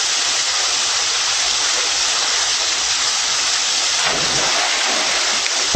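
Water rushing down a rock pool waterslide and splashing into the pool, a steady hiss, with heavier splashing about four seconds in.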